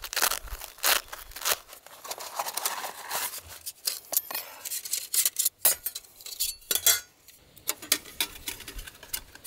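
Thin metal plates of a flat-pack camp stove clinking and clattering as they are taken out of a cloth pouch and fitted together. The sharp clicks and clacks come irregularly, some ringing briefly.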